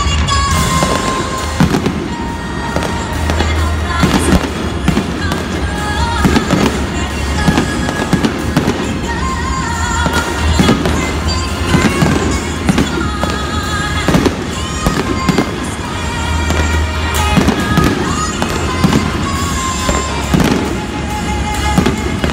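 Aerial fireworks shells bursting in a continuous, irregular run of bangs, about one or more every second, over Disney theme music playing steadily underneath.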